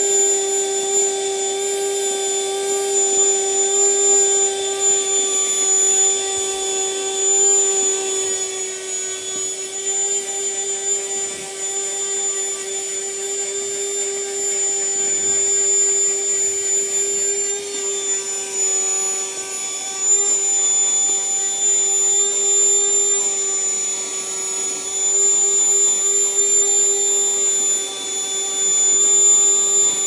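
Bergmann 2-in-1 12-volt car vacuum cleaner running steadily while sucking sand and crushed leaves off a carpet car mat. Its motor gives a constant hum with a thin high whine above it.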